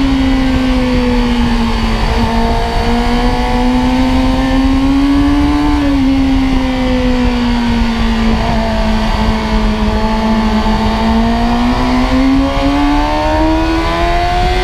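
Onboard sound of a sport motorcycle at speed on a racetrack. The engine holds high revs, its pitch sagging and climbing slowly through the corners with a short dip about six seconds in, over steady wind rush on the microphone.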